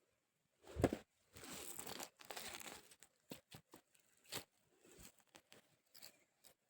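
A thump, then rustling and crunching of soil and potato plants being pulled and handled, followed by a string of light knocks.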